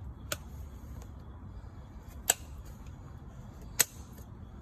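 Three sharp taps of farrier's metal tools on a horse's hoof and shoe, spaced a second and a half to two seconds apart, over a low steady background hum.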